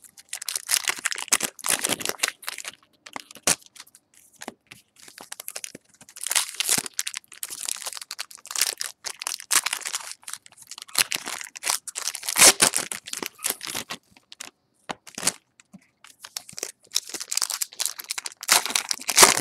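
Topps Strata card pack wrappers being torn open and crinkled by hand in irregular bursts with short pauses, loudest about twelve seconds in and again near the end.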